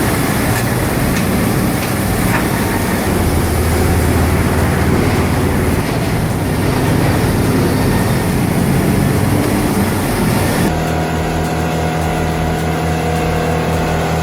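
Loud, dense clattering noise of heavy machinery running. About ten and a half seconds in it cuts abruptly to a steady engine drone with a held hum.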